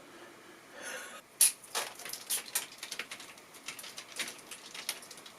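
A ripe tomato crushed fast in a hand as a foley punch-to-the-face sound: one sharp wet splat about one and a half seconds in, then a few seconds of scattered wet crackles and squelches as the pulp breaks up.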